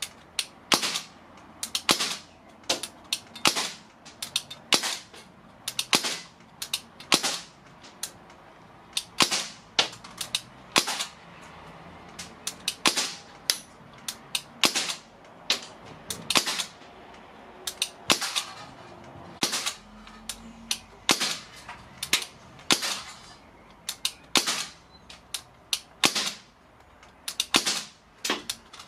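Crosman 1077 CO2 air rifle firing pellets in steady succession, about one shot a second, each a sharp crack, often closely followed by the smack of the pellet punching into the aluminium drinks can.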